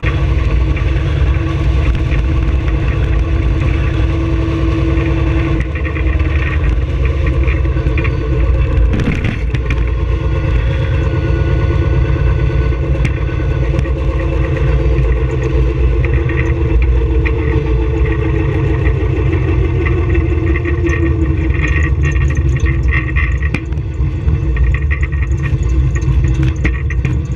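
Wind buffeting and road rumble on a camera mounted on the nose of a small electric race car as it drives, with a steady hum that slowly drifts up and down in pitch.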